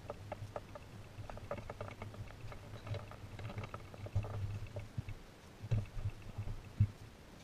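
Hand tools and metal engine parts clinking and rattling irregularly as hands work in a car's engine bay, with two louder knocks near the end.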